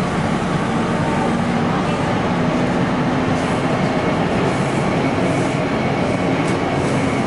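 Taipei Metro C301 metro train running along the line: rail and running noise with a steady low electric traction hum that steps up slightly about two seconds in.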